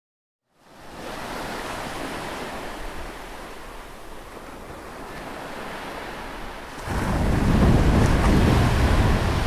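Steady rushing noise that fades in about half a second in and becomes much louder and deeper about seven seconds in.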